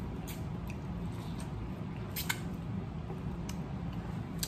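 Close-up eating sounds from biting and chewing corn on the cob: scattered short, wet mouth clicks and smacks over a steady low hum.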